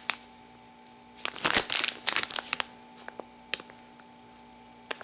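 Plastic bag of soft-plastic baits crinkling as it is handled and turned over: a cluster of sharp crackles from about a second in, then a few single ones.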